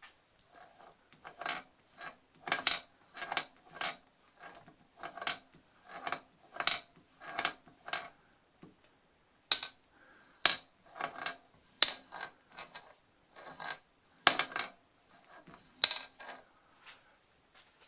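Metal objects clinking and knocking together in an irregular series of sharp, ringing strikes, with a short pause about halfway through.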